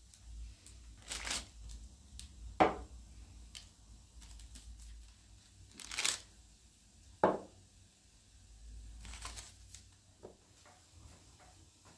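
Household handling noises: three short bursts of rustling or crinkling and two sharp knocks about five seconds apart.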